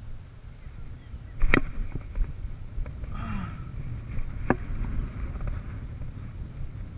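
Wind rumbling on the microphone, with sharp clicks from the baitcasting rod and reel being handled: one about a second and a half in, the loudest, a short rattle near the middle, and another click a little later.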